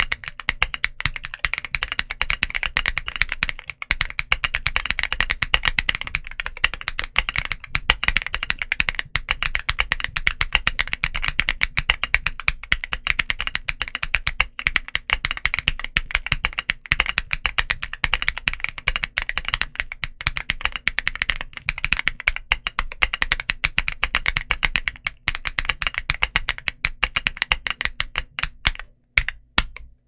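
Continuous rapid typing on a Womier RD75 mechanical keyboard with full POM linear switches and double-shot PBT Cherry-profile keycaps. The keystrokes thin out and stop near the end.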